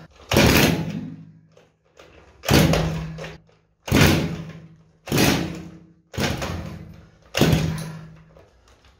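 Homemade four-cylinder two-stroke engine built from four Druzhba chainsaw engines, kicked over six times, about one kick every 1.2 s. Each kick spins it with a whir that dies away within a second; it does not keep running.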